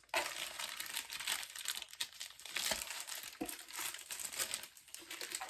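Packaging crinkling and rustling in irregular bursts as a newly bought IKEA item is unwrapped by hand.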